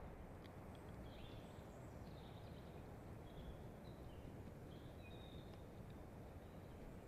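Faint songbirds chirping in short high phrases, several in a row from about one to five seconds in, over a steady low background rumble and hiss.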